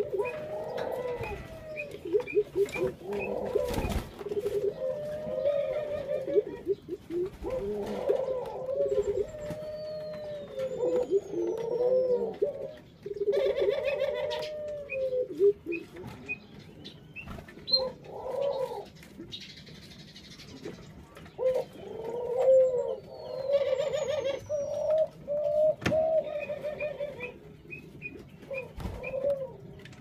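Ringneck doves cooing again and again, the coos of several birds overlapping, with a few faint high chirps from smaller birds.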